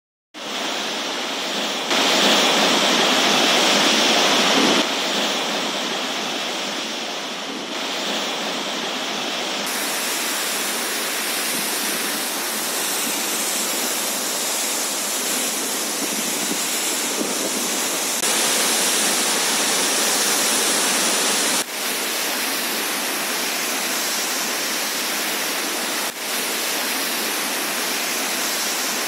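Floodwater discharging from the Three Gorges Dam's outlets: a steady, loud rush of jetting and churning water. The sound shifts abruptly in level and tone several times.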